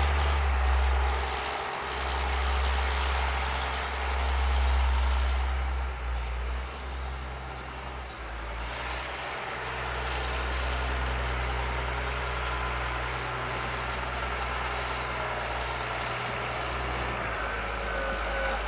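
City street traffic: vehicle engines, a truck among them, running with a steady low rumble under a wash of traffic noise.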